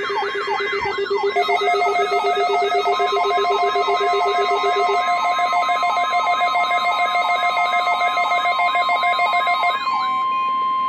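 Weather radio receivers sounding their alert alarms together, warbling up and down about three times a second with steady beeps layered in. Underneath runs the NOAA Weather Radio's steady single-pitch warning alert tone. The receiver alarms stop about a second before the end, leaving that tone alone.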